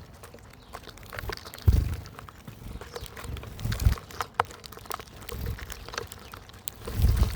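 Wild birds at a backyard feeder: scattered light taps and rustles of pecking and hopping, with a few low thumps and a brief high note about four seconds in.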